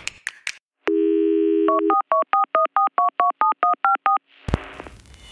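Telephone dial tone for about a second, then about a dozen quick keypad tones dialling a number. A click and a rising hiss follow near the end.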